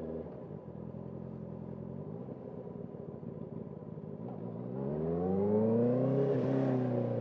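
Motorcycle engine running steadily, then revving hard under acceleration from about five seconds in, its pitch climbing quickly and getting louder before it drops back slightly after a short click near the end, as on a gear change.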